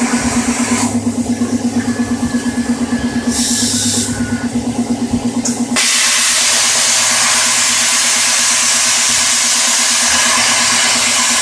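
Plasma cutter on a homemade CNC table: a steady, rapidly pulsing machine hum, joined about six seconds in by the loud, even hiss of the plasma torch firing and cutting, with a brief shorter hiss a little before it.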